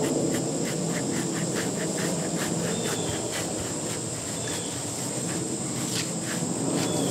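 Rubber Kong dog brush rubbing through a short-haired dog's coat, a soft rough rustle. Insects chirp behind it in a fast even pulse, about five a second, over a steady high whine.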